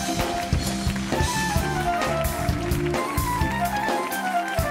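Studio band playing an upbeat jazzy tune: a drum kit keeps a busy beat under quick melodic runs, and the bass drops out briefly near the end.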